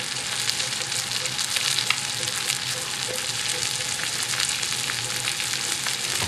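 Pistachio-crusted chicken breasts frying in hot oil in a pan: a steady sizzle with small crackles and pops all through.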